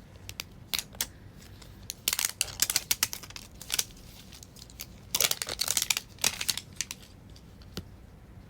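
Plastic wrapping on a toy surprise ball crinkling and tearing as it is opened by hand. It comes in two bursts, about two seconds and five seconds in, with scattered small clicks.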